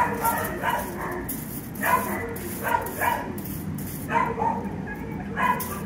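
A dog barking repeatedly, about once a second, in short separate barks.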